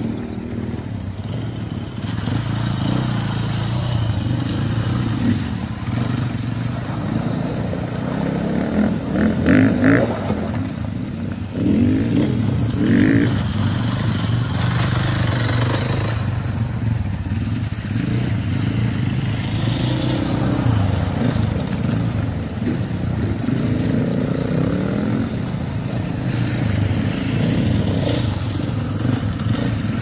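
Enduro motorcycle engines running and revving as the bikes ride through a shallow river, with the engines loudest about ten seconds in.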